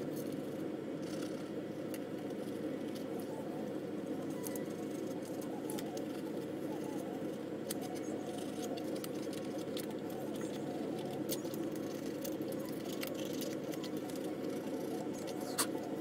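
Fine-grit sandpaper scuffing paint off the raised ridges of a plastic scale model, a light scratchy rubbing with small scattered clicks over a steady low hum.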